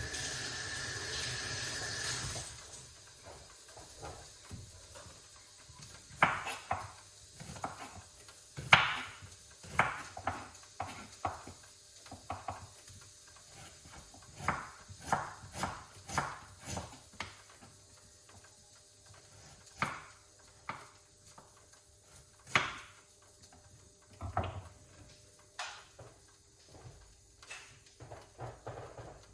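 A knife cutting fresh ginger on a wooden chopping board: irregular sharp knocks of the blade on the board, some louder strokes among lighter taps. A short hiss comes just before the cutting begins.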